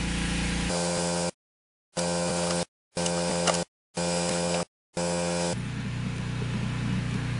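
A steady machine hum with a pitched drone, cut to dead silence four times for a fraction of a second each between about one and five seconds in; its pitch and tone change a little past five seconds in.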